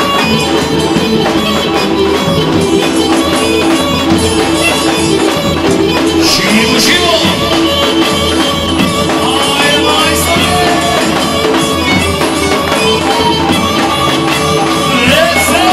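Gajda, a goatskin bagpipe, playing a lively folk dance tune over its steady drone, with band percussion behind it.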